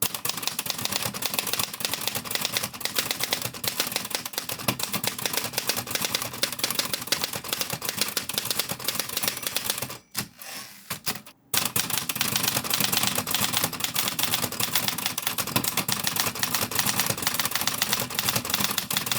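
Manual typewriter typing steadily, key strikes clattering rapidly against the platen, first with the paper bail removed. After a short pause about ten seconds in, the typing resumes with the paper bail in place, holding the paper against the platen.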